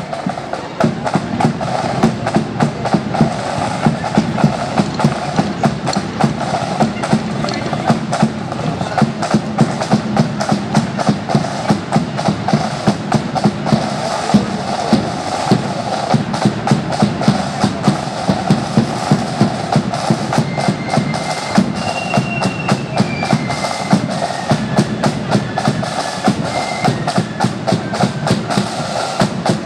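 Marching flute band playing: flutes carry a melody over rattling snare drums, with the bass drum marking a steady marching beat about twice a second.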